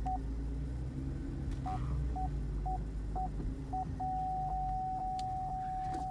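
A car's rear parking-sensor chime beeps about twice a second while reversing. About four seconds in it switches to one continuous tone, the warning that an obstacle is very close behind. The 2011 Camaro's V6 idles low underneath.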